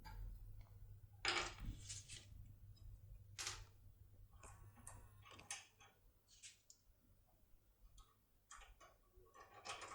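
Faint, irregular metallic clicks and short scrapes of a lock decoder being worked inside an ISEO R90 lock cylinder as its pins are set.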